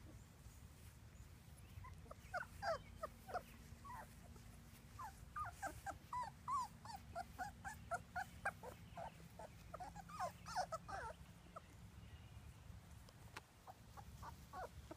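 Three-week-old black Labrador retriever puppies whimpering and squeaking, many short high cries in quick succession that thin out after about eleven seconds.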